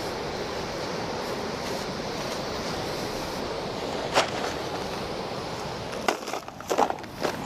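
Steady rush of flowing water, with a single sharp click about four seconds in and a cluster of clicks and knocks near the end.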